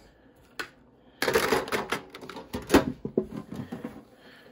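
Hands handling plastic packaging and the tin's contents: a single click, then about three seconds of crinkling, clicking and rattling.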